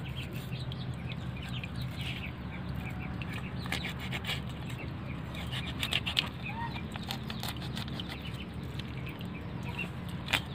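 A cleaver slicing along a fish's belly on a plastic cutting board, with two sharp taps of the blade on the board: one about six seconds in, one near the end. Under it runs a steady low hum, with short faint bird calls scattered through.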